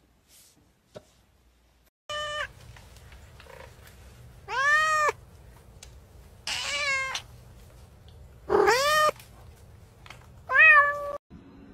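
Domestic cat meowing five times, about every two seconds, each meow a drawn-out call that rises and falls in pitch.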